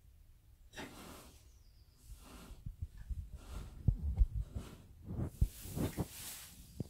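Shetland pony mare breathing hard and snorting as she lies in second-stage labour, the foal's forelegs emerging. Rustling straw and a run of dull low thumps come in the second half.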